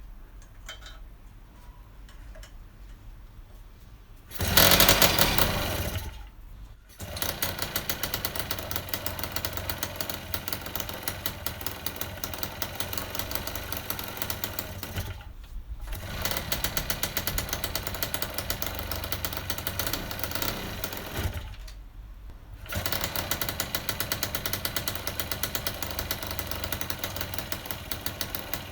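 Freshly rebuilt Piaggio moped's 50 cc two-stroke single-cylinder engine on its first start after a new piston, cylinder and crankshaft: a loud burst about four seconds in, then it runs with a rapid, even beat, cutting out briefly twice and picking up again.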